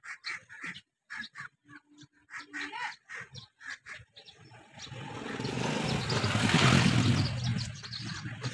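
Birds chirping in short bursts, then a rushing noise with a deep rumble that swells over about three seconds, peaks, and fades near the end.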